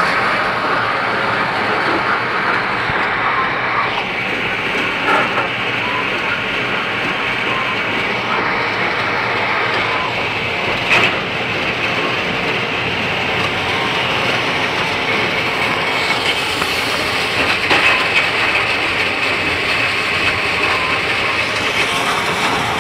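Stone grist mill running: its belt drive and pulleys spinning with a steady, loud mechanical clatter and rattle, with a few louder knocks.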